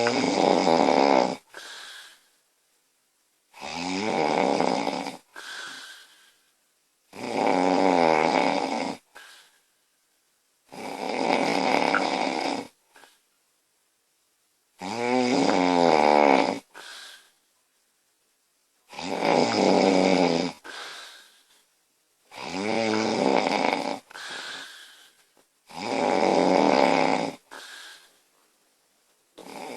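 A woman snoring loudly in her sleep: one long snore about every four seconds, each followed by a shorter, quieter breath.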